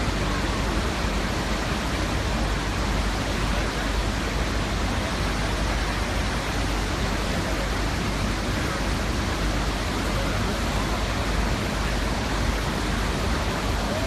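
A large waterfall's steady, unbroken rush of falling water crashing onto boulders, heard close to its base.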